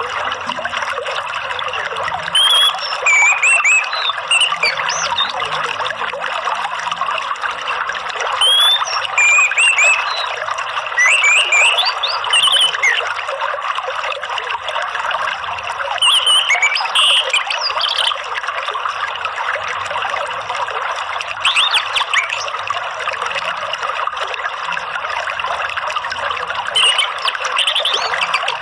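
Steady rush of flowing water, with short, quick phrases of orange-headed thrush (anis merah) song breaking in about six times, every few seconds.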